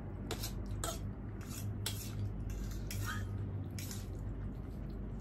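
Cutlery clinking and scraping against a plate while noodles are eaten: a string of irregular sharp clinks, one or two ringing briefly. A steady low hum runs underneath.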